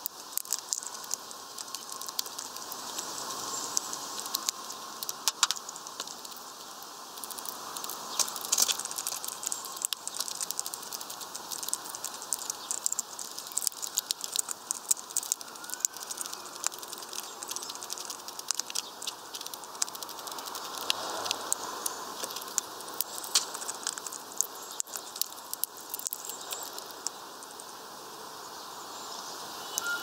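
Hawfinch husking sunflower seeds on a feeder tray: a steady patter of small clicks and cracks from its heavy bill working the shells, with a few louder cracks.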